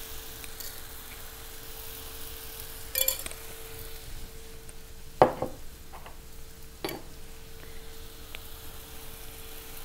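Food frying in a hot pan with a steady sizzle and a steady low hum, and a spoon clinking against the cookware three times, the loudest about five seconds in.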